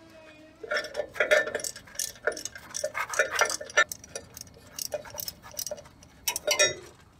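Irregular metallic clicks and clinks of hand tools working on drum brake hardware, some strikes leaving short ringing notes.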